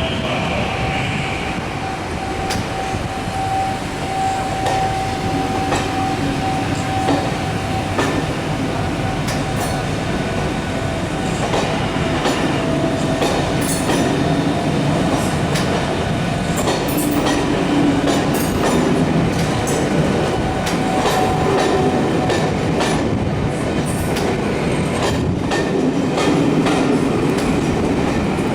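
Train running past on the track, its wheels clicking and clattering over rail joints. A thin steady squeal sounds for the first several seconds, and the clicks grow more frequent in the second half.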